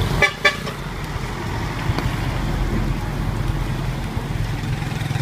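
Street traffic noise with a steady low engine hum, and two short tonal sounds in quick succession right at the start.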